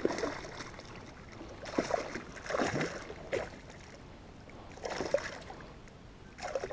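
Hooked bass splashing at the water's surface right beside a kayak, in several separate splashes a second or so apart.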